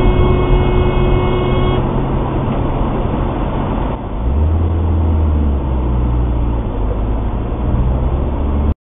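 Car engine and road noise heard from inside a moving car, recorded by a dashcam. A steady tone sounds for the first two seconds. About four seconds in, a deeper engine drone swells for a second or two, and the sound cuts off suddenly near the end.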